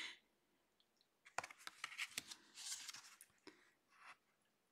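Faint handling of large Somnia Tarot cards: a run of light clicks and taps about a second in, a brief papery slide as one card is drawn over another, and a couple of faint clicks near the end.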